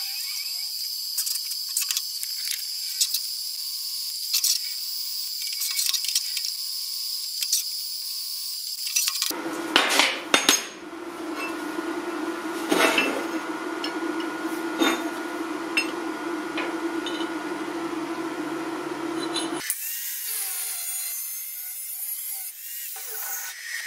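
Metalworking sounds: steel parts and tools knocking and clinking against each other over a steady machine tone, with the sound changing abruptly twice. Near the end an angle grinder is cutting a steel tube.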